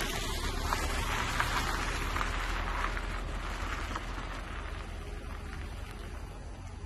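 Steady rain falling, a little softer in the second half, over a low steady rumble.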